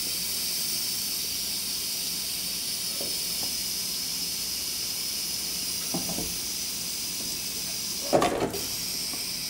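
Pressure cooker letting off steam through its release valve with a steady hiss, cool tap water running over the pot: a quick release, bringing the pressure down so the lid can be opened. A brief louder sound comes about eight seconds in.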